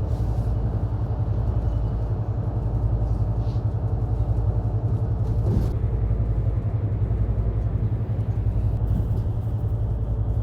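Low, steady rumble of a moving road vehicle.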